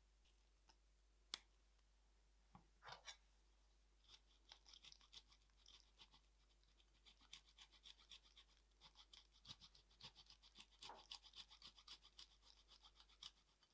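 Parmigiano Reggiano being grated by hand: a faint, fast scratchy rasping from about four seconds in until near the end. A few soft clicks and taps come before it.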